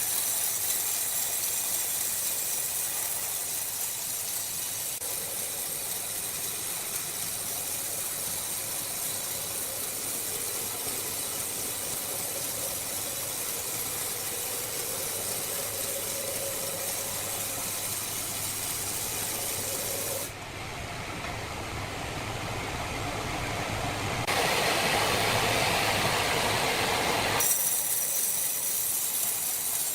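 Sawmill machinery running: a steady hissing noise over a low hum, which changes character abruptly about twenty seconds in and again near the end.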